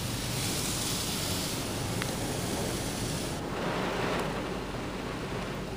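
Automatic car wash water spray hitting the car's glass and body, heard from inside the car: a steady rushing hiss that changes character about three and a half seconds in.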